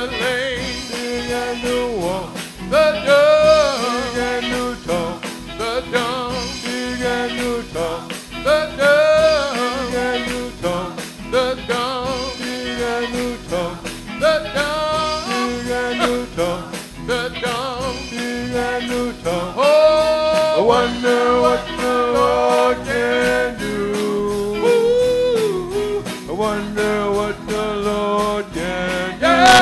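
Live gospel singing in church: a singer's voice carries long, bending melodic lines into a microphone over a band with drums keeping a steady beat.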